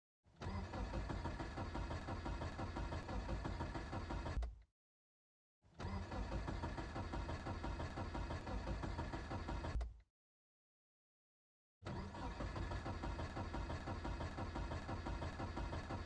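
Car engine cranking on its starter in three tries of about four seconds each, with dead silence between them, the last still going at the end; the engine does not catch, a cold engine that cranks but won't start.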